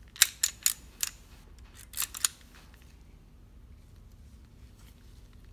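Steel slide and frame of a Star Model BM 9mm pistol clicking as the slide is pulled back and worked into line with its notch: a quick run of sharp metallic clicks in the first second and two more about two seconds in.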